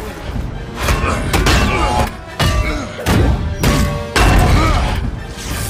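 Movie battle soundtrack: dramatic score mixed with several heavy thuds and blows from a hand-to-hand fight. The sound drops out abruptly a couple of times.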